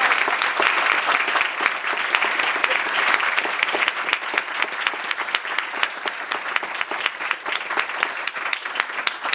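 Audience applauding in a lecture hall, a dense clapping at first that gradually thins out to scattered individual claps near the end.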